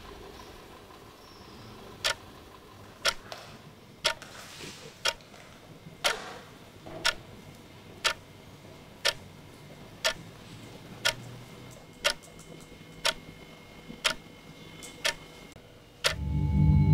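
Clock ticking, one sharp tick a second, about fifteen ticks in a row. Just before the end a much louder, deeper sound with held tones cuts in.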